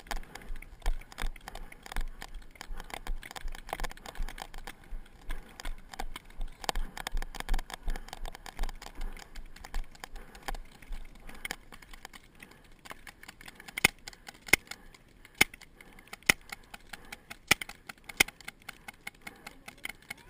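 Close rustling of grass and rattling gear from a person crawling on their belly through long grass. In the last third, a series of loud, sharp single snaps like shots, about one a second at uneven intervals.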